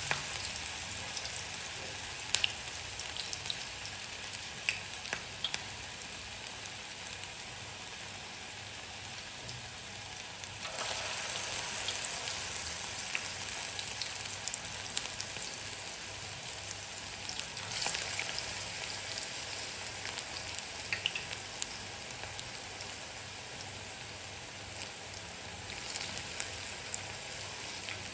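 Batter pakoras of greens and onion deep-frying in a wok of hot oil: a steady sizzle with scattered sharp pops. The sizzle grows louder about ten seconds in.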